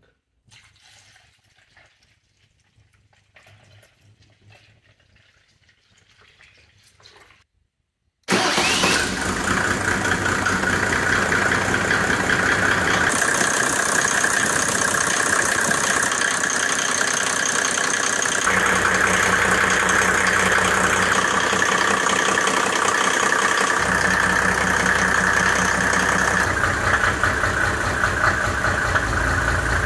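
For the first eight seconds there are only faint scattered sounds. Then a turbocharged Mercedes OM606 3.0-litre straight-six diesel starts abruptly and keeps running at idle to the end.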